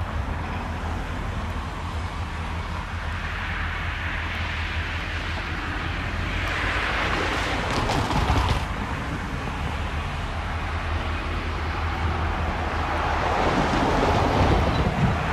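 Diesel-electric road-switcher locomotive approaching slowly, its engine running with a steady low hum under rolling wheel and rail noise, growing louder toward the end. Wind buffets the microphone.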